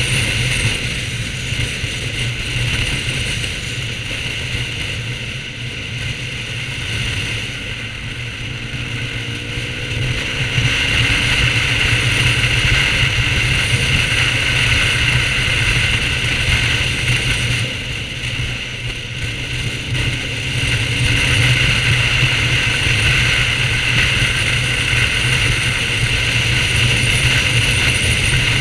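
BMW R1200GS boxer-twin motorcycle engine running under way, mixed with steady wind and road noise. The sound dips twice and then builds again as the bike rides on.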